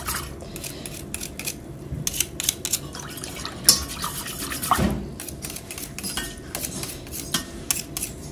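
Irregular clinks and taps of kitchen utensils against a saucepan and dishes, with a stronger knock about five seconds in.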